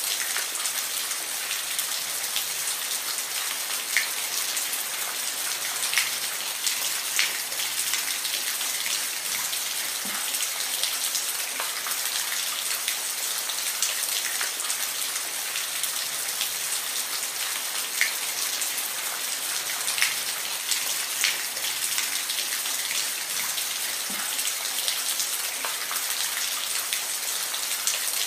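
Steady rain falling, a dense hiss with scattered sharper drip impacts every second or two.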